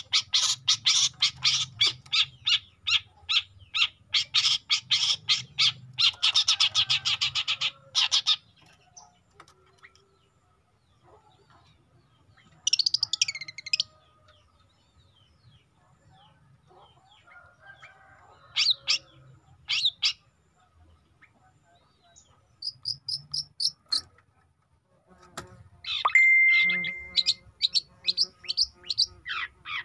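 Young long-tailed shrike singing: a fast string of harsh, repeated high notes for about eight seconds, then quiet gaps broken by short bursts of calls, with a brief steady whistle near the end.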